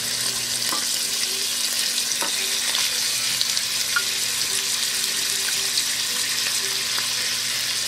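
Raw beef and lamb cubes sizzling steadily in hot butter and olive oil in a frying pan preheated to medium-high, the sizzle starting abruptly as the meat hits the pan.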